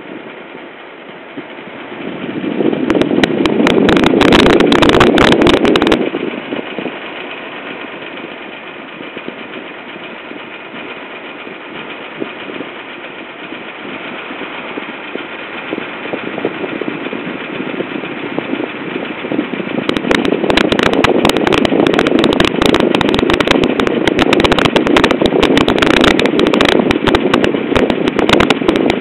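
Air conditioner running with an abnormal noise: a rapid, loud rattling buzz sets in about two seconds in, drops back to a steadier hum around six seconds, and returns loud about twenty seconds in.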